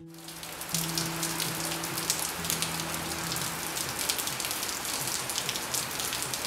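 Dense patter of many small crackles, like rain on a surface, with a low hum coming and going beneath it; it cuts off suddenly at the end.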